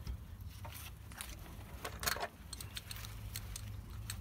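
Light metallic clicks and clinks as a Volvo 480 rear brake caliper is handled and lined up onto its carrier by hand. There is a short, louder clatter about two seconds in, then a few scattered ticks, over a faint low hum.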